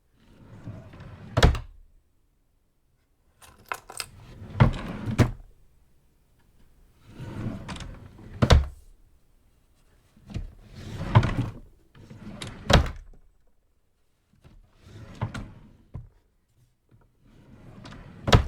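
Small drawer slid open and shut over and over: each stroke a short sliding rub that ends in a sharp knock, repeating every few seconds.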